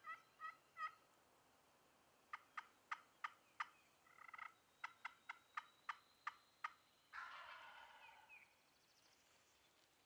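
Wild turkey gobbling: three short calls at the start, two runs of sharp, evenly spaced notes, then a longer rattling call about seven seconds in.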